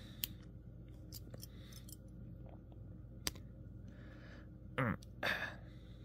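Faint metal clicks of a folding multitool being handled as its blade is folded shut and its pliers are opened, with one sharper click about three seconds in and two brief louder sounds near the end.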